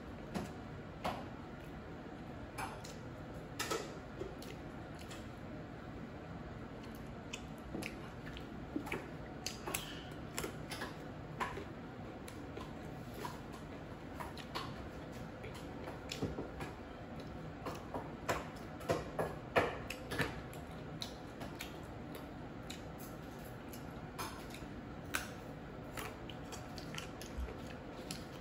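A person chewing chicken wings eaten by hand, heard as scattered soft clicks and smacks at an irregular pace, busiest around the middle.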